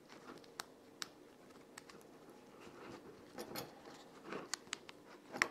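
Faint, scattered metallic clicks and handling noise from a SOG Sync II buckle multi-tool being fitted onto a leather belt by hand, with a louder click near the end.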